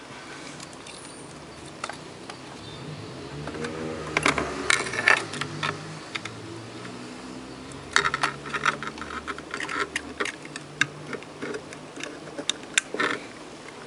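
Scattered light clicks and rattles of hands handling parts at an electronics repair bench, plugging connectors into an active speaker's amplifier board. There is a small cluster about four seconds in and a busier run from about eight seconds on.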